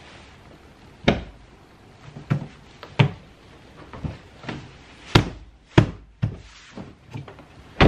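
About nine sharp knocks and thunks at uneven intervals from hand work on a car door as parts are fitted into place.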